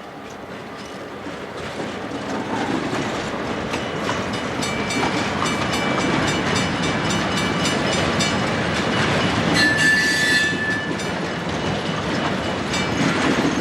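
A train rolling past, growing louder over the first few seconds, with rapid clicking of the wheels over rail joints. A brief high-pitched tone sounds about ten seconds in.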